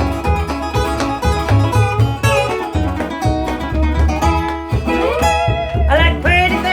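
Instrumental break in a country-bluegrass song: picked acoustic guitar and banjo over a steady bass, with a gliding lead line near the end.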